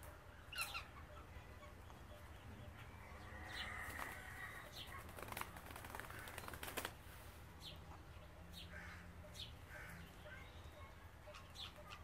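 Faint scattered short bird chirps over a low steady hum, with a few soft sharp clicks of a parakeet's beak working at grapes, busiest in the middle.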